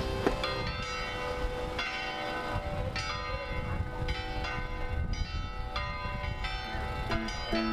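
Church bells ringing, struck about once a second, each stroke's note ringing on over the next. Near the end a plucked-string tune begins.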